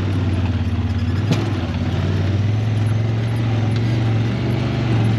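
Side-by-side UTV engine running under steady throttle while driving a rocky dirt trail, heard from inside the open cab; the pitch rises a little about two seconds in. A single knock about a second in.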